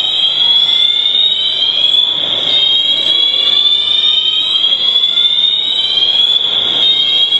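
Shopping-mall fire alarm sounding loudly: a high tone that rises steadily over about two seconds, drops back and rises again, repeating.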